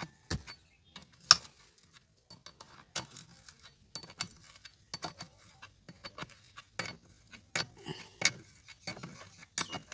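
Scattered sharp metallic clicks and clinks as a chainsaw's bar, chain and bar nuts are handled and tightened by hand, with one louder click about a second in.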